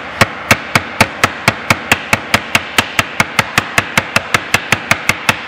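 Meat mallet pounding activated-charcoal tablets in a freezer bag on a wooden board: a long run of rapid, even blows, about five a second, loud.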